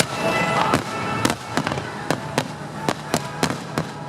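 Fireworks going off in an uneven string of sharp bangs, about two a second, with music playing underneath.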